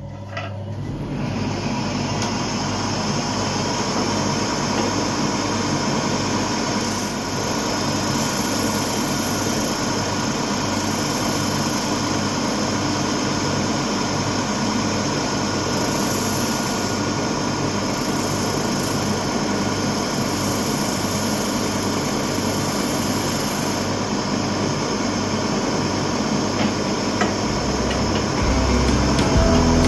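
Homemade drum sander with a 125 mm PVC sanding drum, its small electric motor starting up and then running steadily, with an even low pulsing.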